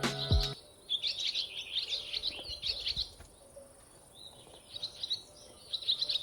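Small songbirds twittering in two bouts of quick chirps, over a steady faint high-pitched hiss. Background music cuts off about half a second in.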